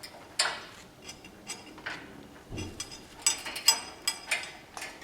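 A parrot's beak clicking and tapping on a hard surface as it picks up a sunflower seed: scattered light clicks, a quick cluster of them past the middle, and one duller knock.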